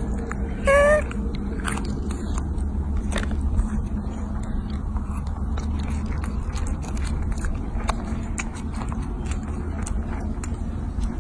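Baby macaque biting and chewing soft fruit: scattered small wet clicks and smacks of eating over a steady low rumble. About a second in, there is one short, high-pitched call.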